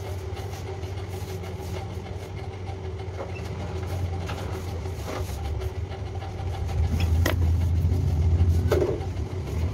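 Steady low mechanical hum that grows louder for a couple of seconds about seven seconds in, with a few sharp clicks scattered through it.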